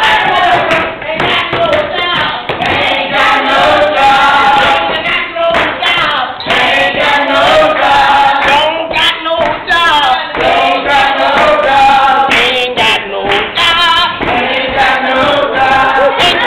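A group of people singing a made-up song together, loud and continuous.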